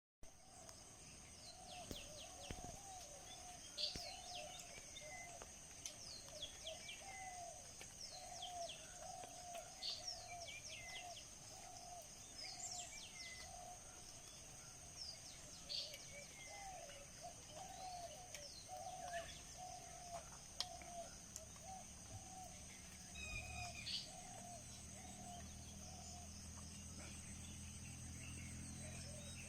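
Faint outdoor ambience of birds calling, with short sharp chirps and a steady run of lower repeated calls, over a steady high-pitched insect drone. A low hum joins about three-quarters of the way through.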